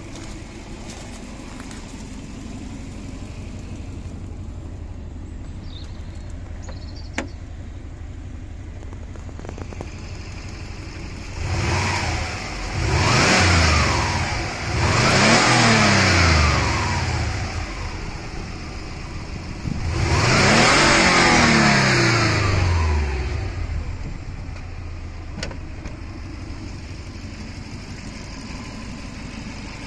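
2003 Subaru Legacy's 2.0-litre twin-turbo boxer engine idling, then free-revved four times about halfway through, the last two revs the longest and loudest, before it settles back to idle.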